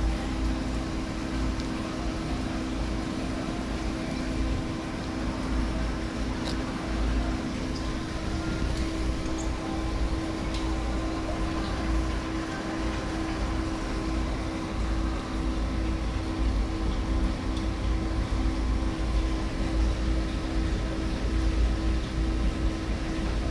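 Steady machine hum with a low rumble underneath and a constant tone, plus a few faint clicks.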